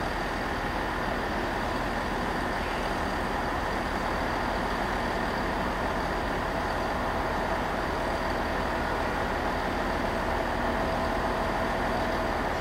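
Class 67 diesel-electric locomotive's two-stroke V12 engine running steadily at low power as the locomotive approaches slowly, a constant hum with a few held tones.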